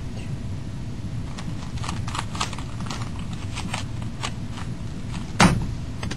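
Rubik's Cube layers clicking as they are turned fast by hand, a quick irregular run of plastic clicks, then one loud knock about five seconds in as the cube is put down hard on the desk.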